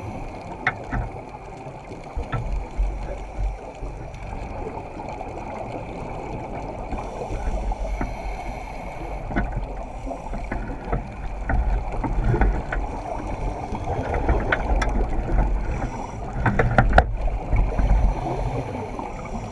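Underwater camera audio: a steady muffled rumble of moving water and divers' exhaled scuba bubbles, with scattered small clicks and knocks.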